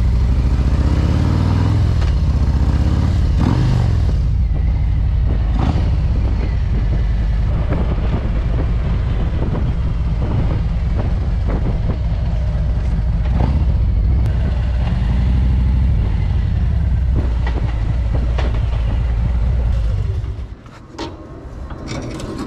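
Harley-Davidson Road Glide's Milwaukee-Eight V-twin engine running under way, its note rising and falling in the first few seconds. About twenty seconds in the engine shuts off, followed by a few sharp clicks.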